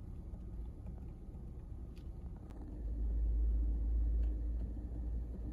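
Low steady rumble in a parked electric car's cabin, swelling for about a second and a half midway, with a few faint clicks of steering-wheel buttons being pressed.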